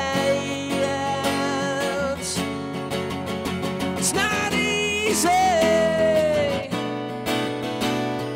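Strummed acoustic guitar accompanying a male singer who holds long notes, the longest beginning about five seconds in and sliding down slightly before it ends.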